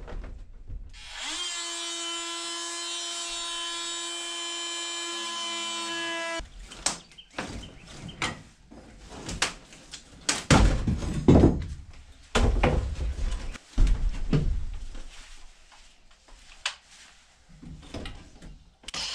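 A handheld power tool runs with a steady high whine for about five seconds, then stops. Irregular knocks, cracks and scraping follow as rotten wooden camper wall framing is broken and pulled out by hand.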